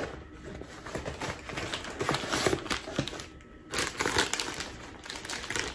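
Paper gift bag rustling and crinkling as it is handled by hand and a fabric drawstring pouch is pulled out, with a brief lull a little past the middle.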